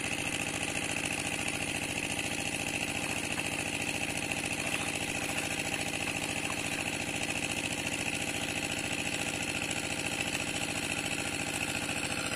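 A small engine running steadily at one constant speed, an even drone that does not change.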